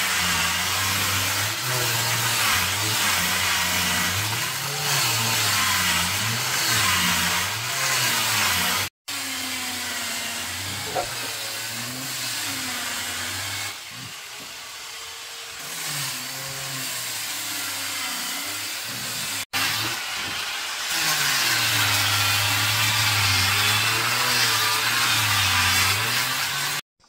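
A small engine running, its pitch rising and falling as the speed changes, in three stretches broken by sudden cuts.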